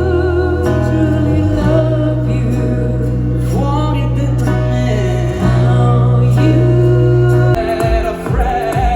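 Live stage musical number: a singer holding long notes with vibrato over sustained low bass and instrumental backing.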